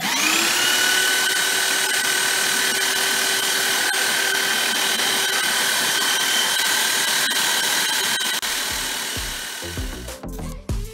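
Belt sander switched on, its motor spinning up almost at once and then running steadily with a whine, free-running with no work on the belt while the belt's tracking is set even with the roller. Near the end it runs down and fades.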